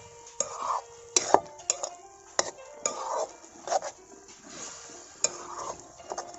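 Food being stirred in a metal cooking pot with a metal spoon: irregular knocks and clanks against the pot, some leaving a short ring, with soft scraping between them.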